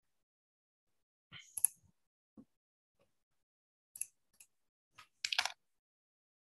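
A few scattered, faint clicks and taps of a computer mouse and keyboard, separated by silence, with a short cluster of clicks near the end.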